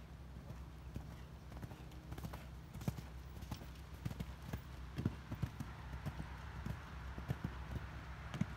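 Horse's hooves cantering on sand arena footing: a run of dull, repeated hoofbeats, over a low steady rumble.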